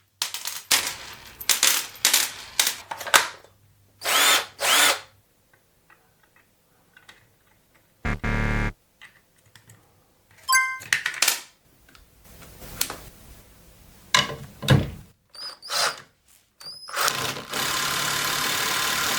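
Makita impact driver being worked on and test-run: a string of short, sharp noisy bursts, a brief steady motor whir about eight seconds in, then the motor running steadily for the last couple of seconds.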